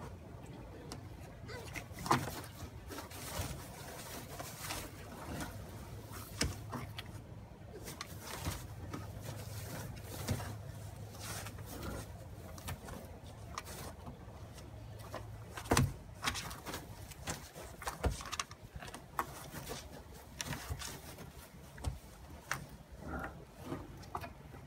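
Irregular clicks, scrapes and rustles from a porcupine moving about in its plastic shelter on wood-shavings bedding, with a few sharper knocks, over a steady low hum.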